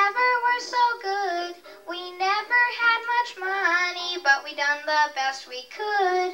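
A young boy singing through a microphone and PA, accompanied on an electronic keyboard, in sung phrases with held notes.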